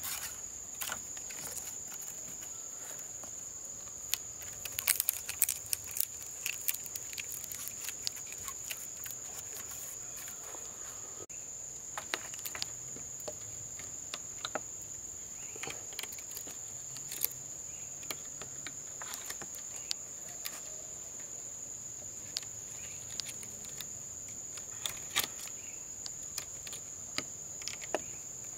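A steady, high-pitched insect chorus, with scattered sharp clicks and knocks over it, most of them bunched about four to seven seconds in.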